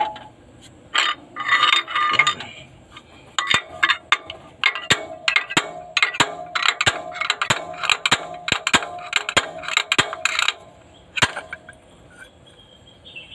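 Homemade slide-hammer puller seated in a Caterpillar 3116 diesel cylinder head, its steel sliding weight clanking against the stop again and again to pull out a broken injector sleeve. The ringing metal clanks come about three a second, then stop shortly before the end.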